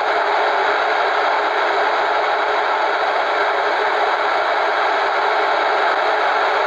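Sunker Elite Three CB radio's loudspeaker giving a loud, steady hiss: the receiver's own noise, heard with the antenna disconnected, squelch off, RF gain at full and volume at maximum.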